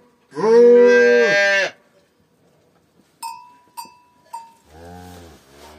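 A calf moos once, a loud, high, drawn-out call of about a second and a half. Midway there are three short bell-like rings, and near the end two quieter, much lower moos.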